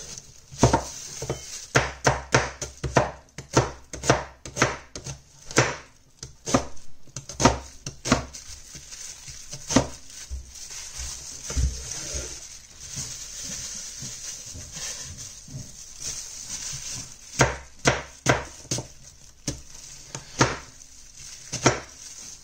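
A cleaver chopping an onion on a wooden cutting board: runs of sharp knocks of blade on board, with a lull of a few seconds past the middle before the knocks pick up again.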